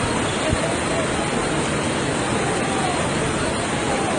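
Floodwater rushing in a steady, loud roar, like a river in spate.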